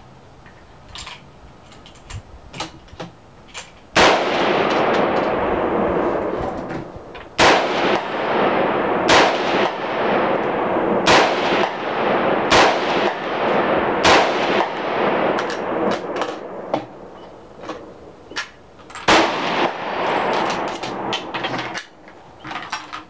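Seven rifle shots from a .223 AR-15-style rifle, spaced one and a half to five seconds apart, each followed by a long echo under the range's roof.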